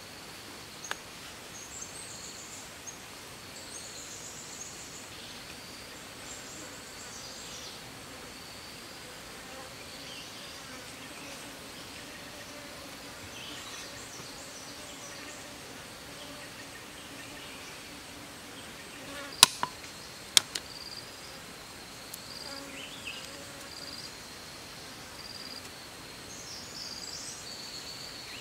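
Insects buzzing and a steady high insect trill, with faint bird chirps. About two-thirds of the way through come two sharp clicks a second apart, the loudest sounds.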